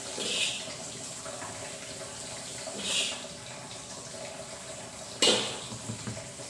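Food frying in a wok with a steady sizzle, while a metal spatula scrapes against the wok twice. A sharp knock a little after five seconds in is the loudest sound.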